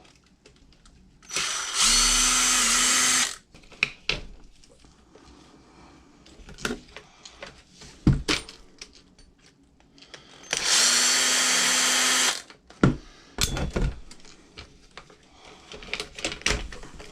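Cordless drill/driver running in two bursts of about two seconds each, taking a fastener off the RC truck's front hub assembly, with small clicks and knocks of parts being handled between the bursts.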